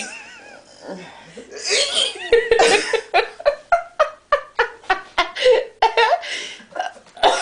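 Hearty laughter in quick repeated bursts, about three to four a second, after a loud breathy outburst about two seconds in.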